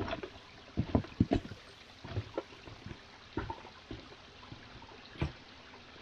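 Footsteps of rubber gumboots on wet stones of a stream bed: irregular clomps and knocks, heaviest about a second in, over the faint trickle of the stream.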